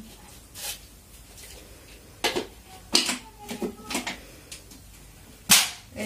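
Hard plastic parts of a Fantom handheld vacuum cleaner clicking and knocking as its dust container is fitted back onto the body, ending in one loud snap about five and a half seconds in as it locks into place.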